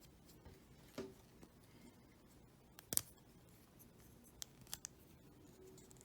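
Faint plastic clicks of a small Transformers Siege Micromaster toy figure's joints and parts being turned and snapped by hand. There is one sharp click about three seconds in and a few lighter ticks shortly after.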